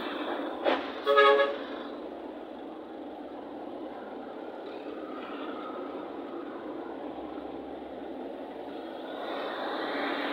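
Steady road traffic noise with a vehicle horn honking once, briefly, about a second in, just after a short blip. The traffic noise swells near the end.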